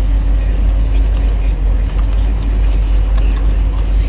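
Steady low rumble of the fishing boat's engine running at trolling speed, with a faint steady hum above it.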